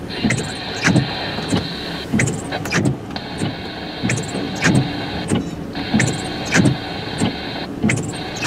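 Freight train of loaded gondolas rolling past, heard from inside a car, with a regular knocking from the wheels.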